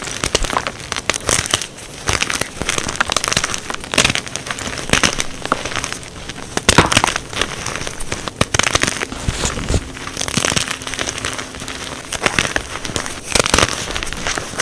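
Blocks of dyed gym chalk being snapped and crushed: dense crackling and crunching with sharp snaps scattered throughout.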